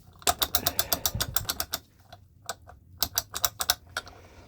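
Rapid light metallic clicking from the two-stroke engine's parts being worked by hand, about ten clicks a second for over a second, then a pause and a second, more scattered run of clicks.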